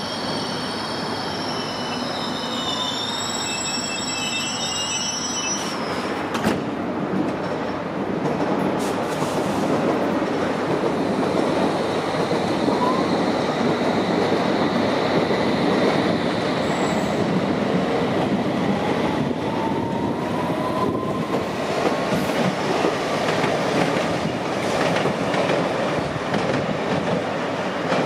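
London Underground S Stock train pulling out of the platform: a high, wavering wheel squeal for the first few seconds, then the rumble of wheels on rails growing louder as it gathers speed, with a few sharp clicks and a faint rising whine about two-thirds of the way through.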